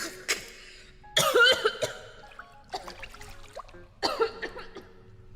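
A woman coughing and sputtering in several separate bursts after inhaling water while gargling; it went up her nose and down the wrong pipe.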